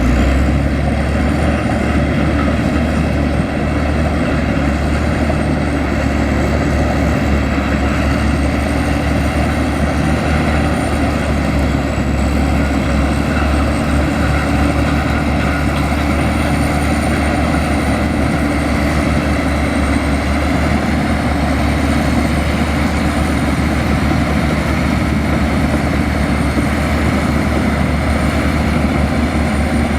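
Komatsu bulldozer's heavy diesel engine running steadily, with a high whine above it that wavers slightly in pitch.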